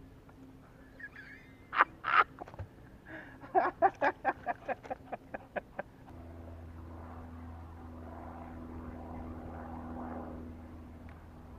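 Two loud calls, then a fast run of about a dozen calls that fade away. About six seconds in, a boat motor starts running with a steady hum.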